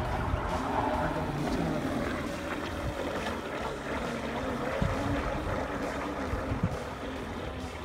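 Motor of a homemade plastic-bottle RC boat running as the boat speeds across the water, a steady hum that wavers up and down in pitch.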